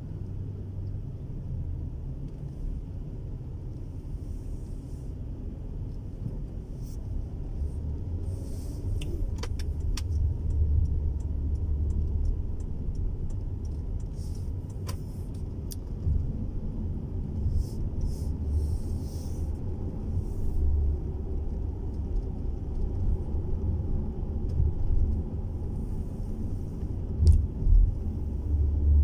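Steady low rumble of a car's engine and tyres heard from inside the cabin, rising and easing as the car moves through slow traffic, with a few sharp clicks and brief hisses.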